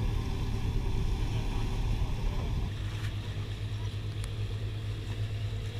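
Boat engine running steadily with a low hum over a haze of wind and water noise; the hum eases a little about halfway through.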